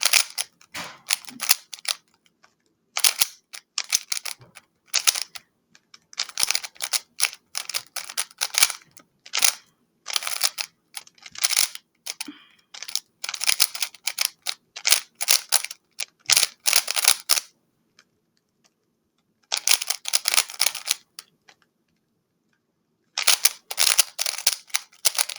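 A 3x3 speedcube, a YuXin Little Magic M, being turned fast by hand: quick flurries of plastic clicking and clacking as the layers snap round. The flurries come in bursts with short pauses, and two longer pauses come in the last few seconds.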